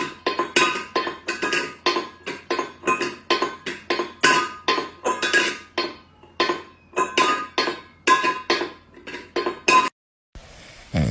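Rapid, repeated clinking of a hard ringing object struck again and again, about three strikes a second, stopping abruptly near the end.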